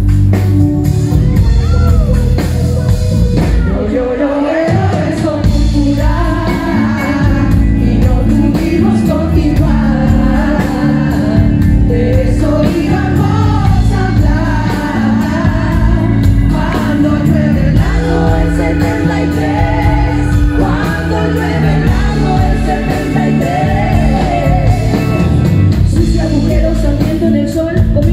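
Live band performing: several female vocalists singing into microphones over drums, electric bass guitar and keyboards, amplified through the PA.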